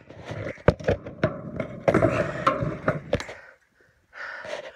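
Running footsteps on grass with the handheld phone jostling, giving a rapid string of thumps and knocks over rough rustling noise. The sound drops out for about half a second a little past the middle.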